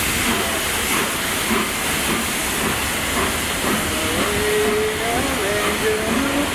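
Steam locomotive hissing steadily as it pulls its train forward. A wavering pitched tone joins in from about four seconds in.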